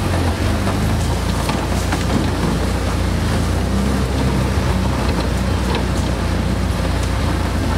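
A vehicle's engine running with a steady low rumble while it drives slowly over a rough forest trail, with scattered small knocks and rattles from the jolting body.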